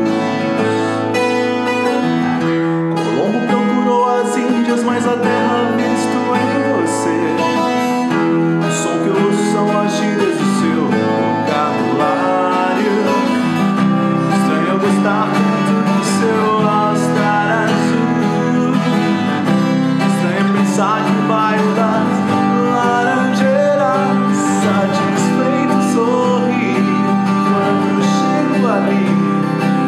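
Twelve-string acoustic guitar strummed, with a man singing along in Portuguese.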